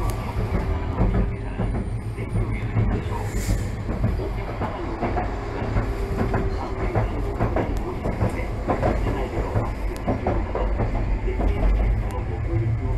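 Kagoshima City Tram streetcar running along its track, heard from inside the car: a steady low rumble with irregular clicks and knocks of the wheels on the rails.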